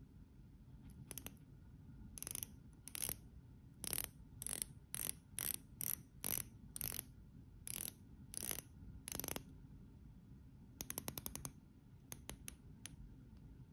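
Rotating bezel of a Hugo Boss Admiral stainless steel chronograph turned by hand, ratcheting in short runs of clicks about a dozen times. A quick string of about eight clicks comes a few seconds before the end.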